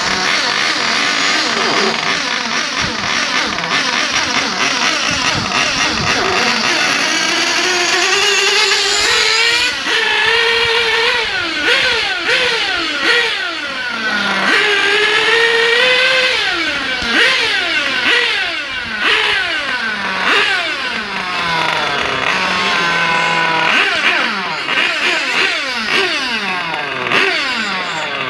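LEGO hand spinner driven by a compressed-air blow gun, whining at high speed over the hiss of the air. Its pitch rises and falls again and again like a small model engine revving.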